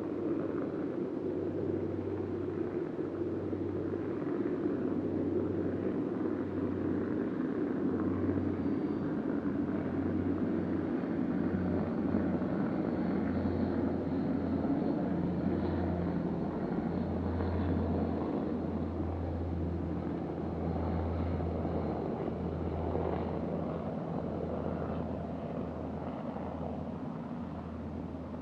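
A low, steady rumble like a distant engine, growing louder toward the middle and fading near the end, with a deeper hum that cuts in and out.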